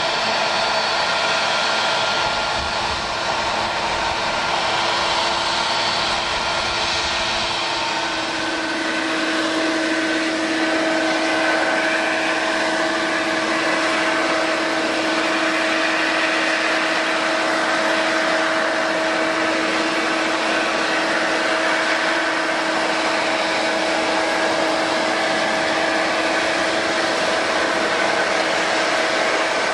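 Boeing 777-200 airliner's jet engines running at low power as it taxis, a steady whine with several held tones. A low rumble underneath drops away about eight seconds in.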